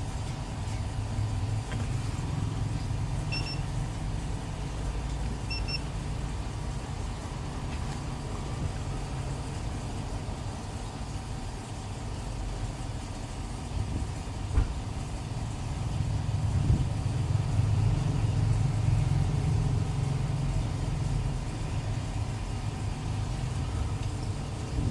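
Steady low rumble of motor-vehicle traffic, with two short high beeps about two seconds apart a few seconds in and a single sharp click about halfway.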